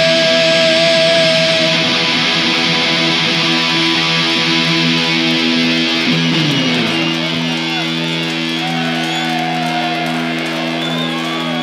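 Distorted electric guitars and bass holding a ringing chord, the live punk band letting the final chord of a song sustain. About six seconds in, a note slides down in pitch.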